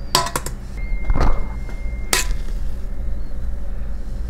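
A spoon clicking and knocking against a stainless steel mixing bowl while thick batter is spooned into a silicone bagel mold: a quick cluster of sharp clicks, a dull knock about a second in, and another sharp click about two seconds in. A steady low hum runs underneath.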